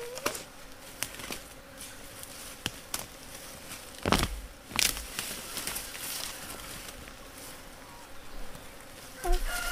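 A flying insect buzzing faintly and steadily, with a few scattered clicks and two brief louder rustles about four and five seconds in.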